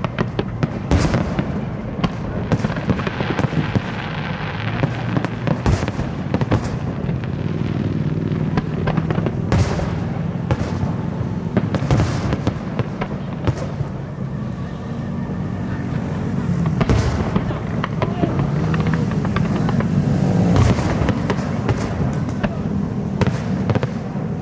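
Aerial fireworks show: repeated sharp bangs of bursting shells over dense crackling, going on without a break.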